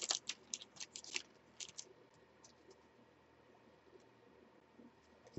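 A trading-card pack being opened by hand: the wrapper crinkling and the cards sliding out make a quick run of short rustles and clicks in the first second and a half, then only a few faint ticks as the stack is handled.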